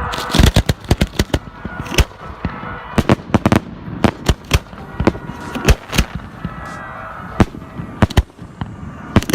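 Fireworks display going off: a rapid, irregular string of loud, sharp bangs and cracks, many in quick succession throughout.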